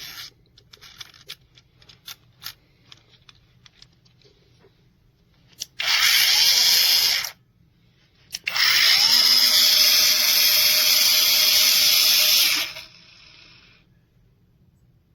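Cordless mini angle grinder switched on twice and run without load: a short run of about a second and a half, then a longer one of about four seconds that rises in pitch as it spins up, holds steady, and winds down once released. A few light handling clicks come first.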